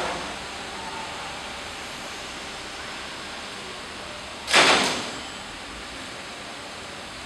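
A steady hiss of background noise, broken about halfway through by one short, loud rush of noise lasting about half a second.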